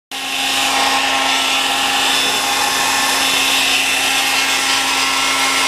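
Handheld hair dryer running steadily, a constant motor hum under a loud rush of blown air, heating a sticker's adhesive on a carbon fiber part. The sound cuts in abruptly and holds level without change.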